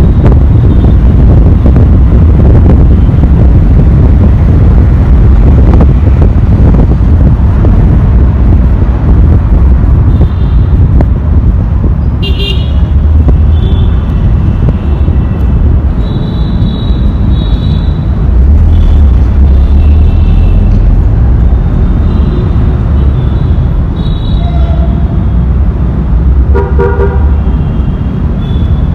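Vehicle horns honking in dense city traffic, many short toots from several vehicles starting about a third of the way in, with a lower-pitched horn near the end. Under them is a heavy low rumble of wind on the microphone and road noise from riding along.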